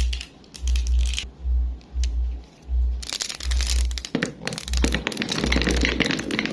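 Marbles clicking and rattling along a marble run track, sparse at first and turning into a dense clatter about three seconds in. A deep bass pulses underneath throughout.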